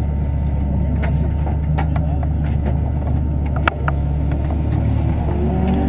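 Race car engines idling with a steady low rumble in the pit lane during a driver change. Scattered knocks and clunks come from the driver clambering out of the open cockpit, with one sharp knock a little past halfway.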